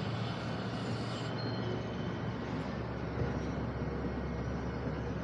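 Cable car system running: a steady mechanical rumble with a low hum, which grows fuller about halfway through.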